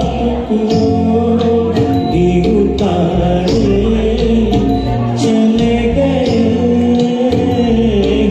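Hindi ghazal music: steady instrumental accompaniment with light percussion under a wavering, sustained melody line.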